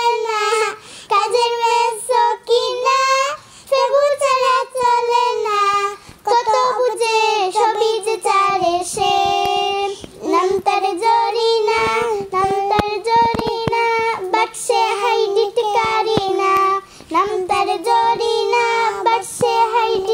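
A child singing a Bengali gojol (Islamic devotional song) in a high voice, in phrases with held, wavering notes.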